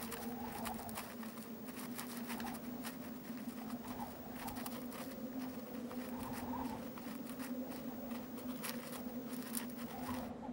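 Dense scratching and crackling of loose desert sand grains being disturbed, many small clicks in a row, over a steady low hum.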